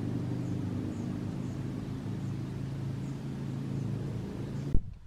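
Steady low hum of a running engine, cut off abruptly by a click near the end.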